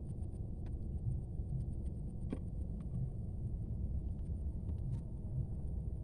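Steady low rumble outdoors on the water, with a few faint clicks.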